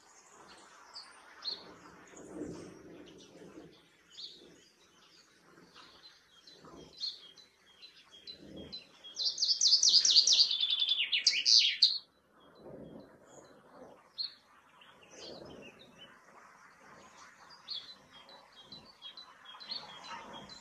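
Male common chaffinch (Fringilla coelebs) singing one loud song about nine seconds in: a rapid series of notes that falls in pitch over about three seconds and ends in a short flourish. Faint chirps from other birds are scattered around it.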